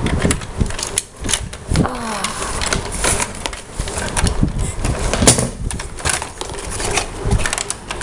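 Plastic clicking, knocking and rattling of a toy Nerf dart blaster with a rotating barrel being handled and turned over in a child's hands, in many irregular short clicks.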